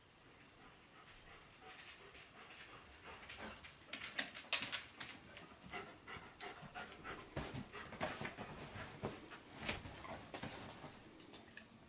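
A White Swiss Shepherd dog panting faintly as it walks to its bed, with short, irregular ticks of its steps.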